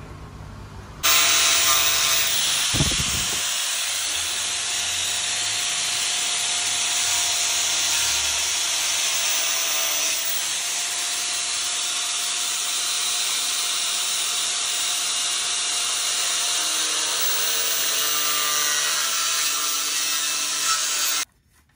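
Power tool cutting the plastic of a scooter headlight housing to make room for a different headlight: a steady grinding hiss with a faint motor whine under it. It starts abruptly about a second in, with a short low knock soon after, and cuts off abruptly just before the end.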